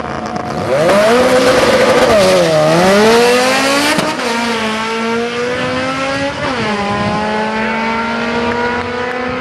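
Drag-racing Honda four-cylinders launching hard off the line, the B18-engined car's revs climbing, then dropping at each gear change, about three shifts, as the cars pull away down the strip.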